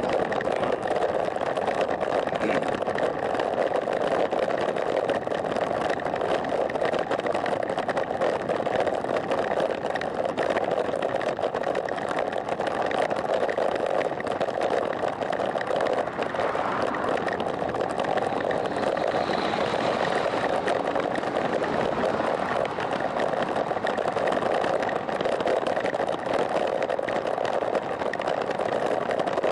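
Steady rushing noise of wind on the microphone and road-bike tyres rolling on asphalt, heard from a camera mounted on a bicycle moving at about 20 km/h.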